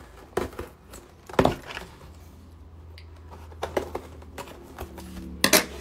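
Dull scissors cutting at a cardboard mailer box, and the box being handled and pried open: a handful of sharp snips and cardboard knocks, the loudest about a second and a half in and again near the end.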